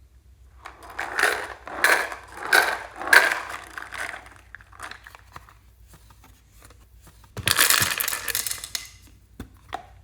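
Something being crushed: four short crunches about two-thirds of a second apart, then a longer crunch lasting about a second and a half near the end.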